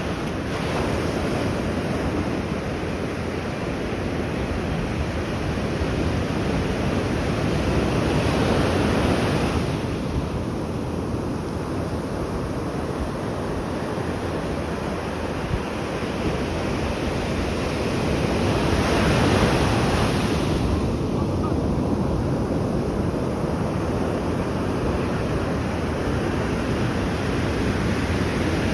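Atlantic Ocean surf: a steady wash of waves, with two larger waves swelling and breaking, about eight and nineteen seconds in.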